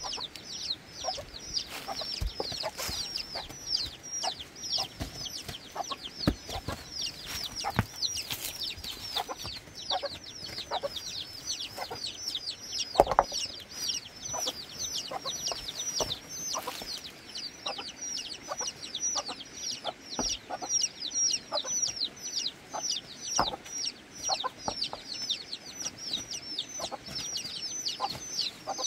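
Chicks peeping continuously in a rapid run of high peeps that fall in pitch. Now and then stones knock together as rocks are stacked, the loudest knock about halfway through.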